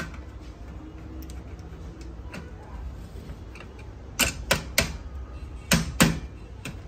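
Sharp clicks of a screwdriver and plastic and metal parts against the bare metal chassis of an opened laser printer being reassembled: faint ticks at first, then five loud clicks in two quick groups, three and then two, past the middle.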